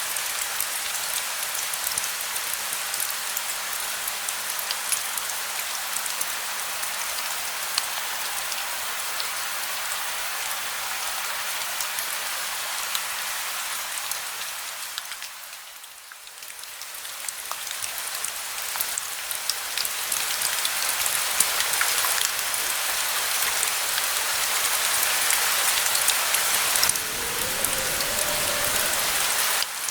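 Steady rain with fine drop ticks. About halfway through it fades briefly and comes back louder, and a low rumble comes in near the end.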